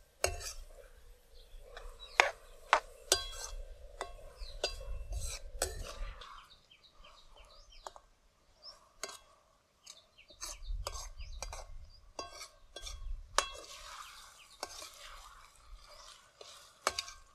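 Steel ladle stirring chopped greens and onion in a steel pan, scraping and clinking against the metal in a run of sharp, irregular clicks.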